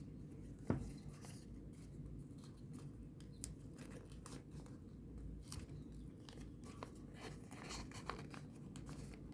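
Faint rustling and crinkling of folded paper origami units being handled and tucked together, with a few small clicks, the sharpest about a second in.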